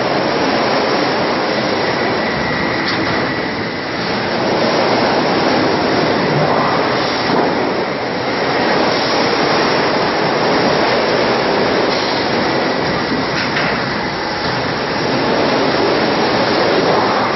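Steel sheet straightening and cut-to-length line running: a loud, steady mechanical noise, with a faint high whine for a couple of seconds and a few light clicks.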